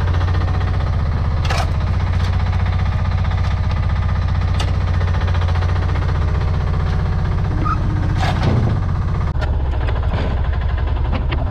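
Small diesel engine of a Chinese mini excavator running steadily under work, with a few sharp clanks and a scrape near the end.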